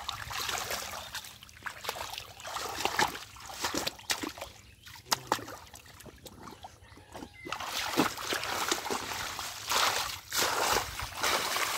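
Irregular splashing and sloshing in shallow muddy water as hands grab a big catfish and rummage through water hyacinth. The splashes come thickest near the end.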